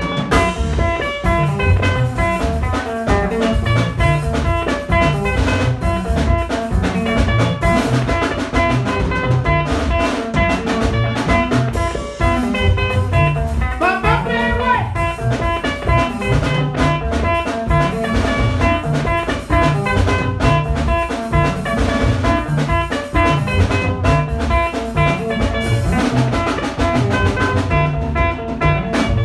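Live band music played on electric guitars: an upbeat, steady guitar groove over a regular low beat. A man's voice sings briefly into the microphone about halfway through.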